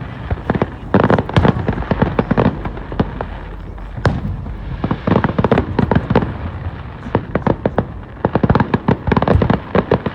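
Fireworks going off in a rapid, dense run of sharp pops and crackling bangs, thinning briefly a little before halfway.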